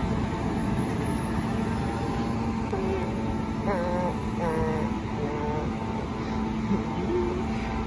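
MTR M-Train electric multiple unit running away along the track as a steady rumble, with a low steady hum from about two seconds in and a few short wavering tones around the middle.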